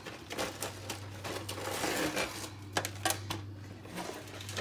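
Lasagna noodles being laid into a metal baking pan: scattered light clicks and rustles of handling, with two sharper clicks near the end, over a steady low hum.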